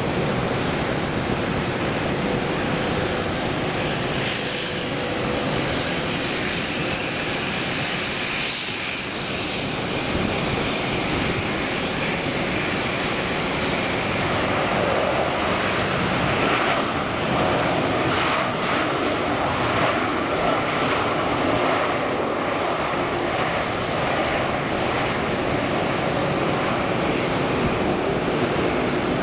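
Airbus A330-243 airliner landing, its Rolls-Royce Trent 700 turbofans giving a steady rushing jet noise through touchdown and the rollout. The noise grows louder about halfway through.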